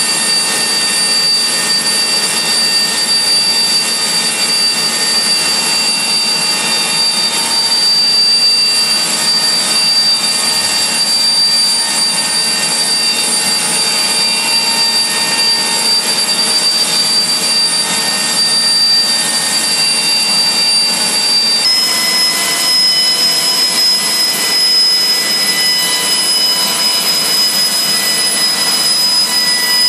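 AiResearch Garrett GTP70-9 turboshaft engine running steadily: a loud rushing sound with a high turbine whine made of several steady tones. About two-thirds of the way through, the whine jumps slightly higher in pitch.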